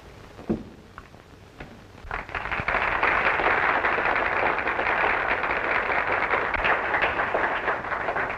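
Audience applauding: a few scattered claps, then full, steady clapping from about two seconds in that stops near the end.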